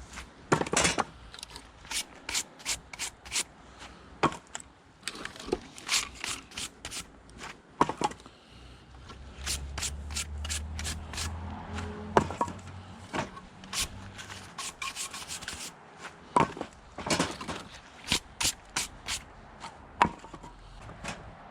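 Split maple and ash firewood knocking and clacking as pieces are handled and stacked: irregular sharp wooden knocks, a few a second in clusters, with rubbing between them.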